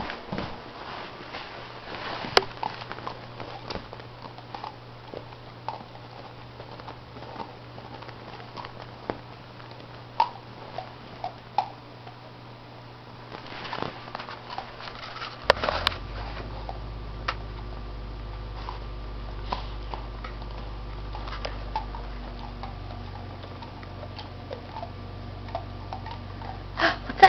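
Teething German shorthaired pointer puppy sniffing and gnawing at an ice cube, with irregular small clicks and crunches. A louder knock comes about halfway through and another just before the end.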